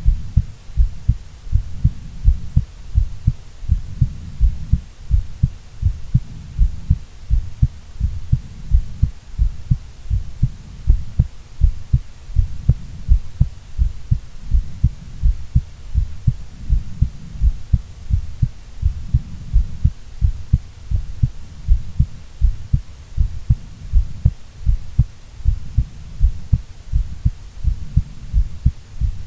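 A woman's heartbeat: low thumps repeating in a steady, even rhythm, about two a second.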